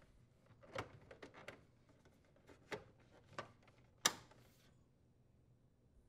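Plastic ice maker side cover of a refrigerator clicking and tapping faintly as it is realigned and slid into place, with one sharper, louder click about four seconds in.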